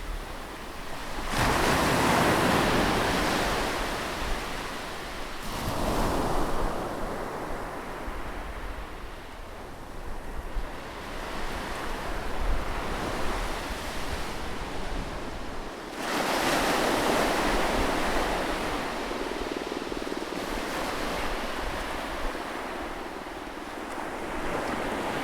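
Sea waves breaking and washing up the shore: a big surge about a second in, another around five seconds, and a third about sixteen seconds in, each swelling then fading into a steady wash of surf.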